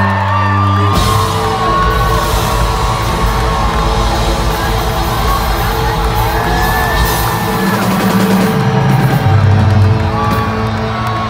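Live hard-rock band playing loud, with distorted guitars, bass and drums. About a second in the full band crashes in with drums and cymbals. Yells and whoops from the singer and crowd ride over the music.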